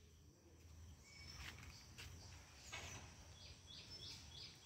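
Faint outdoor ambience with birds chirping; from about three and a half seconds in, one bird repeats a short high call about three times a second.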